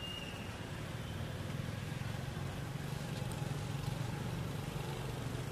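Steady low engine rumble, like a vehicle running nearby, swelling slightly through the middle, with a brief high thin note right at the start.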